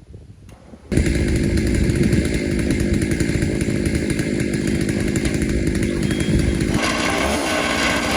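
Chainsaw running at high speed while milling a red oak log. It comes in abruptly about a second in and holds steady, with a slightly harsher edge near the end.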